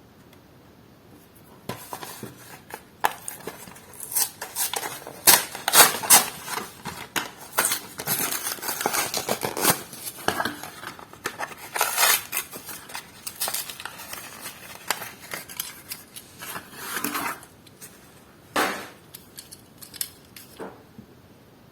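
Plastic and cardboard toy-car packaging being handled and opened, with irregular clicks, snaps and crackles that start about two seconds in.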